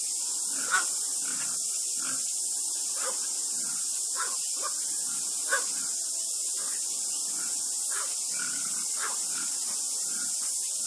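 Short, scattered animal calls, with sharper ones about a second in and about five and a half seconds in, over a steady high hiss.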